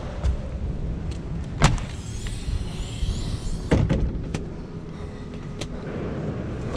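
Steady low mechanical hum with a few sharp knocks, the loudest about a second and a half in and another near four seconds in.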